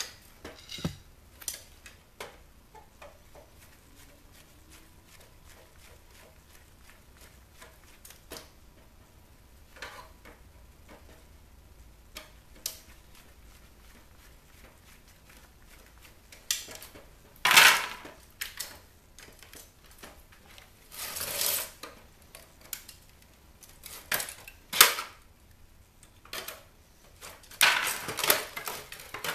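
Plastic and metal parts of a CD changer being handled and taken apart: scattered clicks and knocks, then louder clattering in the second half.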